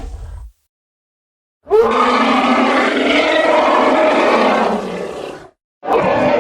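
Elephant calls: a loud, harsh call lasting about four seconds, then after a short silent gap another call starting near the end.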